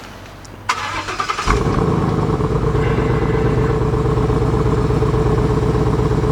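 2015 Ford Mustang GT's 5.0 V8 on its stock exhaust being started: the starter cranks for under a second, the engine catches about a second and a half in, and it settles into a steady, rhythmic idle.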